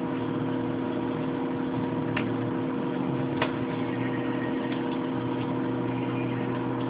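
A steady hum of several even tones, like a running machine or electrical hum picked up by the microphone, with a few faint clicks scattered through it.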